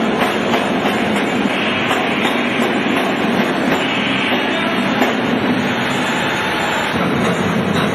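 Steady, loud mechanical running noise of heavy workshop machinery, a continuous rumbling clatter with scattered light clicks.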